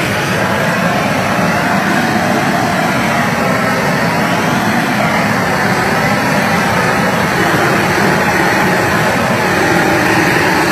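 Harbor Freight propane flamethrower torch burning with a steady, loud jet of flame as it sears steaks on a grill grate.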